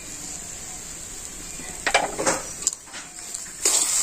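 A metal spatula scraping and clinking against a metal kadai as mashed potato and chopped coriander are stirred. There are a few separate scrapes and knocks from about halfway in, and the loudest comes near the end.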